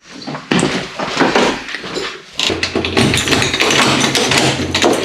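A lever-handled wooden door being opened, with repeated clicks and knocks from the handle and latch over a rustle of handling. A low steady hum comes in about halfway through.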